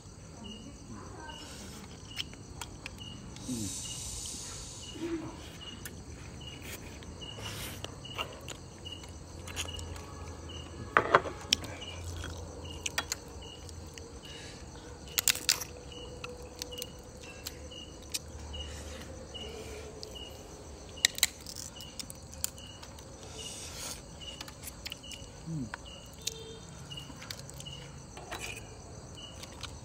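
An insect chirps steadily, just over once a second, while scattered sharp clicks and cracks come at irregular intervals as crab shells are broken and eaten.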